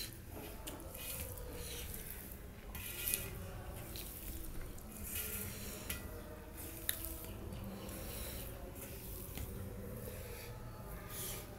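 A bare hand mixing and scooping puffed rice on a steel plate: irregular crackly rustling with a few sharp clicks, over a steady low hum.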